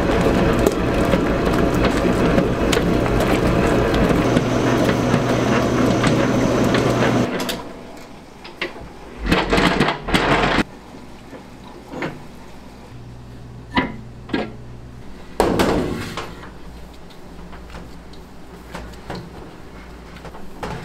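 Commercial stand mixer with a dough hook kneading pizza dough in a stainless steel bowl: a loud, steady motor hum and whir that stops suddenly about seven seconds in. After that come scattered knocks and a couple of louder clattering bursts from handling the metal bowl and dough.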